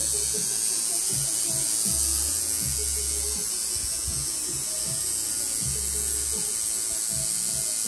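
Electric tattoo machine buzzing steadily while it tattoos skin.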